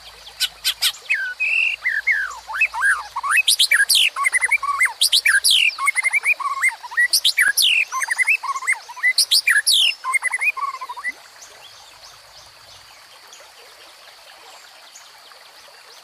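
White-rumped shama singing a fast, varied run of whistled phrases with quick rising and falling sweeps, stopping about eleven seconds in. Under it, the steady rush of a small forest stream.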